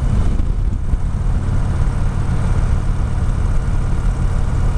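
2015 Victory Cross Country's V-twin engine running at a steady cruise, a low even drone under a haze of wind and road noise.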